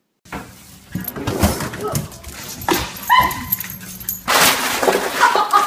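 A dog barking and whimpering, with one short high yelp about three seconds in, over knocking and loud rustling.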